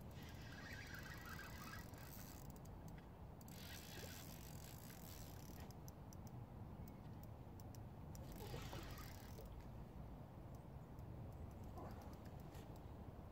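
Fixed-spool fishing reel being wound in several short spells, its gears ticking and clicking, as a hooked fish is played on a bent rod. Faint throughout, over a low steady rumble.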